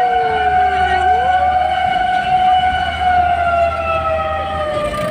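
Fire truck siren wailing as the engine responds to an emergency: two overlapping siren tones, one held steady while the other sweeps down, climbs back up about a second in, and dips again near the end.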